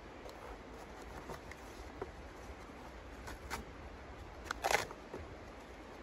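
Small wood pieces clicking and scraping as they are handled inside the firebox of a small steel camping wood stove, with a short burst of louder clicks about three-quarters of the way in.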